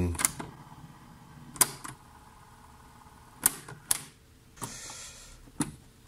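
A handful of sharp, separate clicks, about five, spaced irregularly: the switches and controls of a Tascam Portastudio 414 MkII cassette four-track being operated by hand to check that the freshly repaired unit has power. A brief soft hiss comes about five seconds in.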